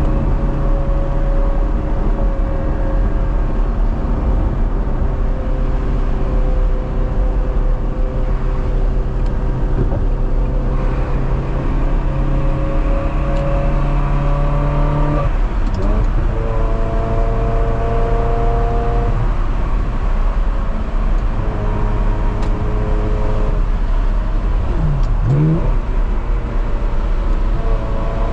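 Ferrari 360 Modena's 3.6-litre V8, through an aftermarket Fabspeed exhaust, pulling steadily with its note slowly rising. About halfway through the note changes pitch at a gear change, and near the end it dips and rises briefly.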